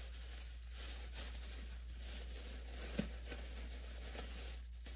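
Thin plastic dog-waste bag crinkling faintly as it is knotted shut by hand, with a short click about three seconds in.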